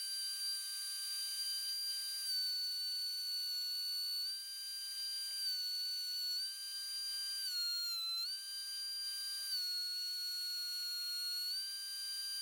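DeWalt 735 thickness planer running with a high, steady whine. Its pitch dips several times and then recovers as it takes cuts from a board, with the deepest dip about eight seconds in.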